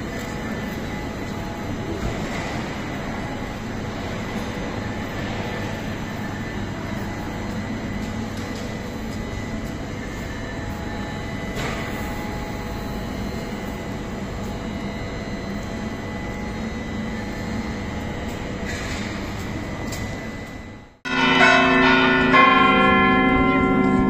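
Steady background noise of a railway station platform with an electric commuter train standing at it. About 21 seconds in the sound cuts abruptly to loud cathedral bells ringing, several pitches sounding together.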